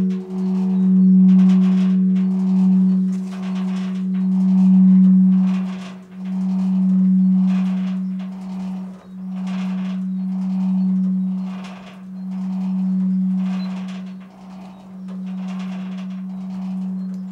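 Large bronze church bell tuned to G-flat (ges'), a 785 kg light-rib bell cast by F.W. Schilling in 1950, swinging in its bell chamber. The clapper strikes about once a second on alternating sides, and a deep hum rings on between strikes with a slow beating wobble in loudness.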